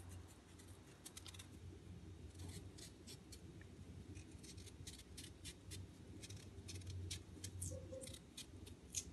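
A small kitchen knife peeling a raw potato: faint, short scraping cuts through the skin, several a second in an irregular run.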